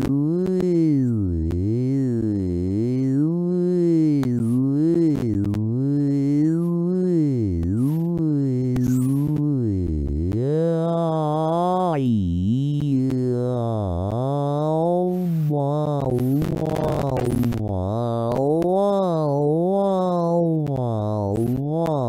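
Pink Trombone, a browser vocal-tract synthesizer, holding one continuous synthetic voice whose pitch swoops up and down about once a second while its vowel shifts as the tongue is dragged about. For about a second and a half near the three-quarter mark a breathy hiss joins in as the tract is narrowed.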